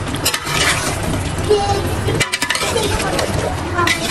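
A metal ladle stirring cubed potatoes in a large metal pot, clinking and scraping against the pot's side with several sharp clinks.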